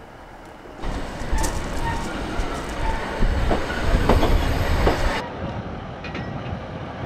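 ScotRail Class 156 Sprinter diesel multiple unit running into the platform, its diesel engine running with clicking from the wheels and a high squeal as it slows. The sound starts abruptly about a second in and drops suddenly to a lower rumble about five seconds in.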